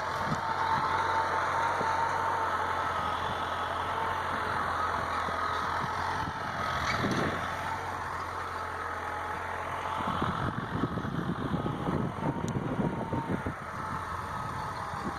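Engine running steadily with a high whine, growing rougher and more uneven in the low end over the second half.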